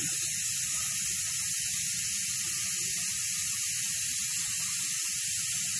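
Steady hiss with a faint low rumble underneath, unchanging throughout: an air compressor running nearby.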